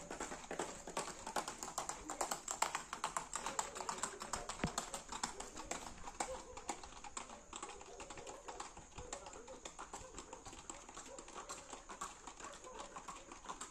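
Horses' hooves clip-clopping on a concrete road: a quick, irregular run of clicks, heavier in the first few seconds and lighter later on.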